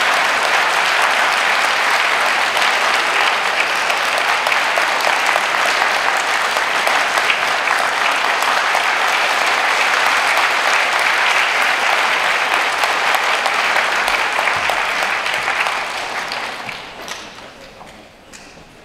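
Audience applauding steadily, then dying away over a couple of seconds near the end to a hush with a few stray claps.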